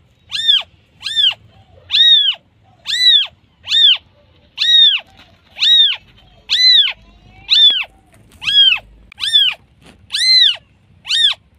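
Newborn kitten meowing over and over, about once a second: thin, high-pitched cries that rise and fall in pitch. These are its calls for its mother.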